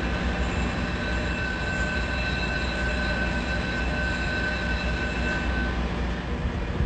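Ship's engine-room machinery running with a steady low rumble, and a steady high alarm tone over it that stops about six seconds in. The alarm is the main engine's jacket water pressure alarm, sounding after complete failure of the starboard jacket water pump.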